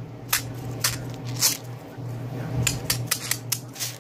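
Handprint fidget toy being handled: a run of sharp, irregular clicks, about a dozen of them, some in quick pairs.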